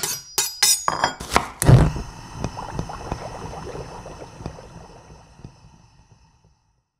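Intro sting of sound design: a quick run of sharp clinking hits, the loudest about a second and a half in, then a ringing, rattling tail that slowly fades out.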